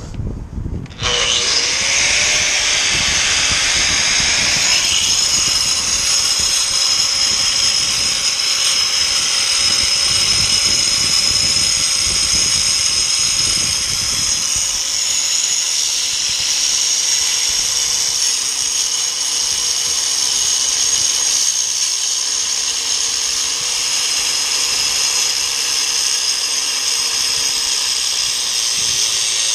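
Handheld angle grinder starting up about a second in, then running continuously as it grinds, with a loud steady high-pitched whine whose pitch wavers slightly as the disc is pressed into the work.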